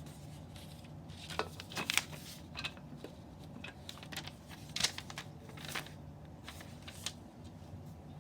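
Popcorn kernels popping in a microwave popcorn maker: irregular sharp pops, a handful spread out with the loudest about 2 and 5 seconds in, over the steady hum of the running microwave.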